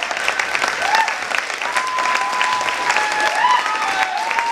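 Audience applauding at the end of a dance performance, with several voices whooping in long, held high calls over the clapping.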